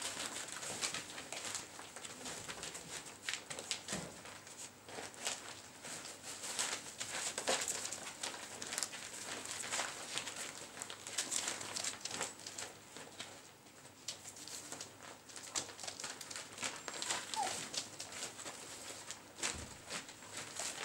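Poodle puppies playing and tugging at a black plastic sheet: quick crinkling and rustling of the plastic, with scattered small clicks and scuffles.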